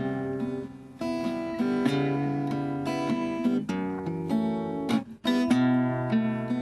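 Acoustic guitar playing ringing chords, an instrumental introduction to a bard song, with short breaks about a second in and about five seconds in.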